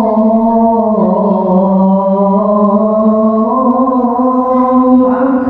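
A man's voice chanting the adhan, the Islamic call to prayer, in long drawn-out notes. The pitch steps down about a second in and climbs back near the middle.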